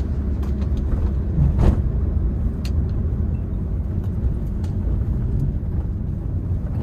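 Honda Brio driving, heard from inside the cabin: a steady low rumble of engine and road noise, with a few light clicks and knocks.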